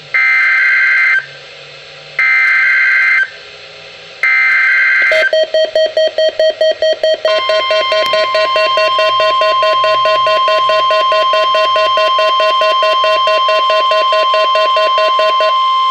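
NOAA Weather Radio emergency alert signalling over a radio receiver: three one-second bursts of warbling SAME digital header tones about a second apart, then a rapidly pulsing buzzy alert tone, joined about seven seconds in by a steady high alert tone. Together they mark the start of a Required Weekly Test.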